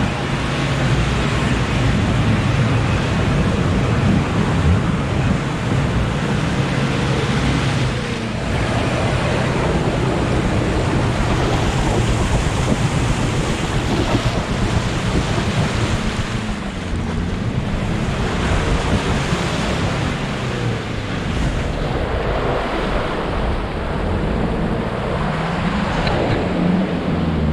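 Off-road 4x4's engine running under load as it drives through deep mud ruts, its note rising and falling, with wind buffeting the roof-mounted microphone.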